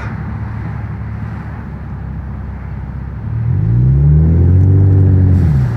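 2015 Ford Mustang's 2.3-litre turbocharged four-cylinder EcoBoost engine through an aftermarket Magnaflow exhaust, heard inside the cabin: a steady low rumble at low speed, then a little over three seconds in the engine pulls away, its note rising in pitch and getting louder before easing off near the end.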